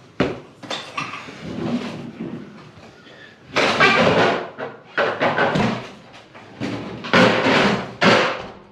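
Clattering work noise of an old gas water heater being worked loose and moved: a string of bangs, knocks and scrapes, five or six of them loud, some lasting under a second.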